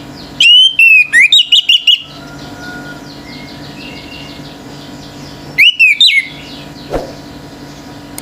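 Orange-headed thrush singing: two loud bursts of sharp, gliding whistled phrases, a longer one near the start and a short one about six seconds in. A faint, fast chirping runs underneath, with a single click near the end.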